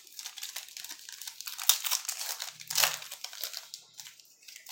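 Plastic wrapper of a 2013 Panini Rookies and Stars football card pack crinkling and tearing as it is opened by hand, a run of sharp crackles that is loudest around the middle and dies down near the end.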